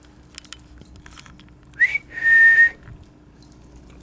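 A person whistling: a short upward-sliding note about halfway through, running straight into a held steady note, with faint clicks and light jingling before it.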